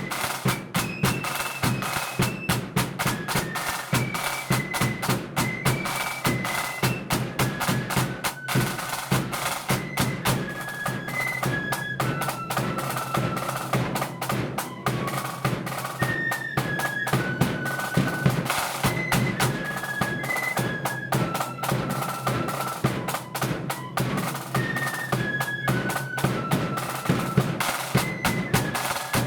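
Blood-and-thunder flute band playing a march: a high flute melody over busy snare drum rolls and steady bass drum beats.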